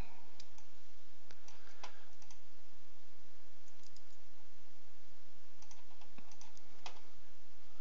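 Computer mouse clicking: a string of irregularly spaced single clicks while faces are picked one by one in CAD software, over a steady low hum and hiss.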